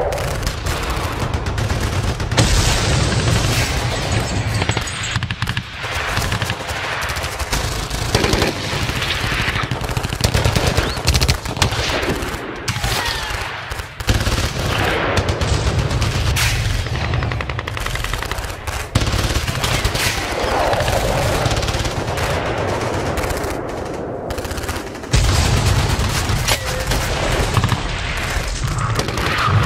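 Airsoft gunfire: electric airsoft rifles firing in rapid strings of sharp cracks and clatter, some close and some further off, over a steady low rumble.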